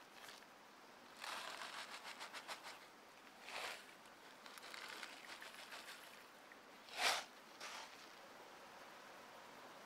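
Salt shaken from a cardboard box into a small plastic tub: a quick run of tiny pattering grains, then shorter bursts, and one sharp knock about seven seconds in, the loudest sound.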